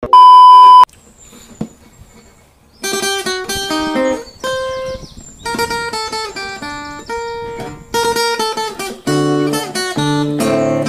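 A loud, steady test-pattern beep lasting under a second, then after a short pause background music of plucked acoustic guitar playing a melody, with a lower bass line joining about nine seconds in.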